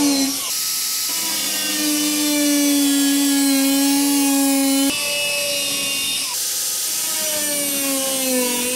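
High-speed power cutting tool whining as it cuts into the rust-damaged steel body panel along a scribed line, cutting out the section for a patch. The whine sags in pitch as the wheel bites and breaks off and picks up again a few times.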